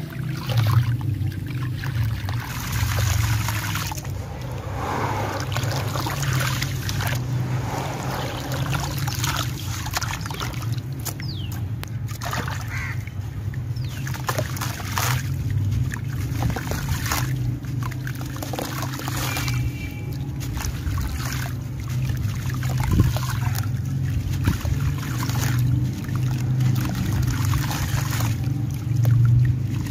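Gritty sand-cement chunks crushed and crumbled by hand, with many irregular crunches as sand and crumbs fall and trickle into water. A steady low hum runs underneath.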